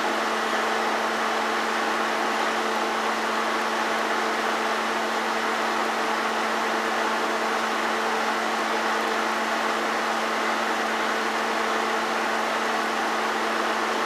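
Steady mechanical whir with a constant low hum running under it, typical of a film projector motor and fan running while silent home-movie film plays.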